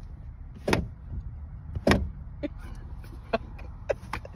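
Ostrich pecking at the car through the open window: two sharp knocks about a second apart, then a few lighter taps, over the low steady rumble of the vehicle.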